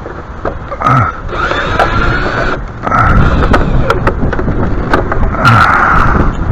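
Wind buffeting the microphone with a low rumble that grows stronger about three seconds in, over repeated knocks, clicks and short scrapes from a downspout piece being handled.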